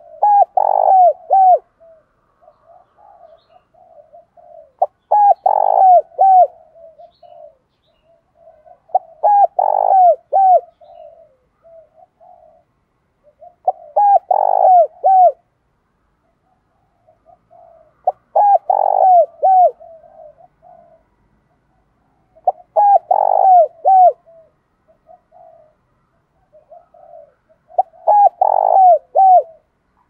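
Spotted dove cooing: seven short phrases of a few coos each, about a second and a half long, repeated roughly every four and a half seconds, with softer notes between.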